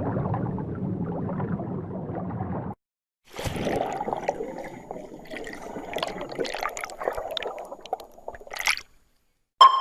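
Underwater sound effects. A low rumbling water ambience cuts off about a third of the way in. After a brief silence comes bubbling and gurgling water with many small sharp pops. A loud sonar-like ping starts just before the end.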